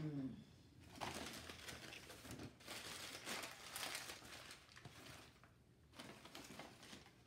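Gift packaging being torn open and crinkled by hand, in irregular rustling bursts with a short pause about five seconds in. A brief falling voice sound right at the start.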